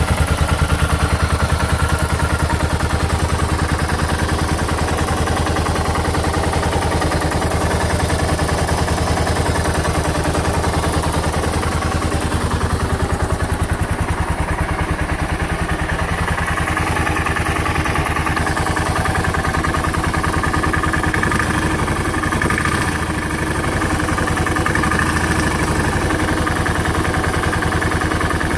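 Suzuki S40 Boulevard's 650cc single-cylinder engine idling with a steady, even knock, which the owner takes for piston slap at under 4,000 miles.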